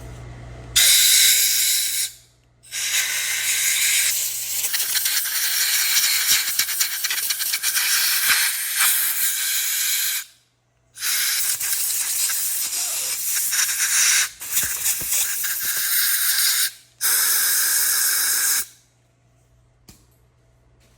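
Compressed-air blow gun blowing out a transmission part in several long hissing blasts with short breaks, stopping a couple of seconds before the end.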